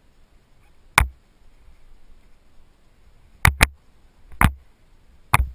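Five sharp knocks on a head-mounted camera as a skydiver handles a landed parachute: one about a second in, a quick pair around the middle, and two more toward the end, over a faint low rumble of light wind.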